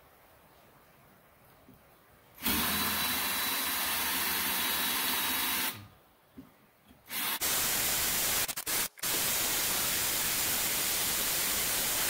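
Power drill boring holes through a metal skid plate, starting about two and a half seconds in. It runs steadily for about three seconds, stops, then starts again with a few short stops and starts and runs on steadily to the end.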